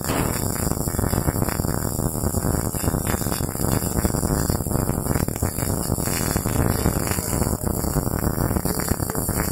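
MIG welding arc crackling steadily: the rapid, sizzling buzz of the wire short-circuiting into the weld pool while a vertical-position weld is run.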